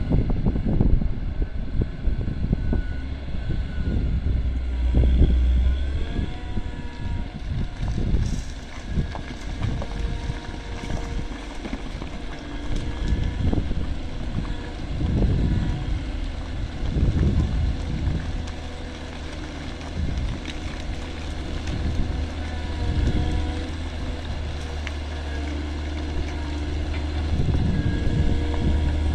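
Caterpillar 140M motor grader's diesel engine running steadily under load, its pitch shifting a little at times as the machine works, with gusts of wind buffeting the microphone.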